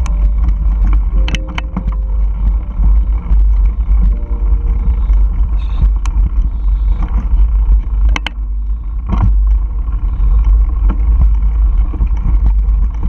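Mountain bike riding over a dirt trail: heavy wind buffeting the camera microphone with tyre and trail noise, and several sharp rattles and knocks as the bike hits bumps.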